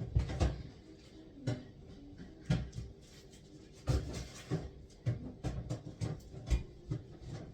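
Kitchen handling sounds: a string of irregular knocks and bumps, like cupboard doors and cookware being moved about while getting ready to fry.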